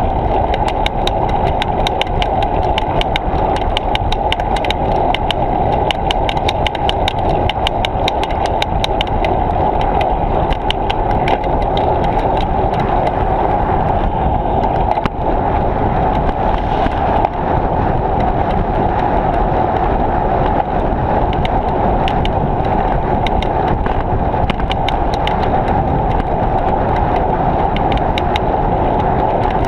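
Steady wind rushing over a bicycle-mounted action camera while riding, with a fast, irregular clicking rattle from the bike and mount over the rolling noise.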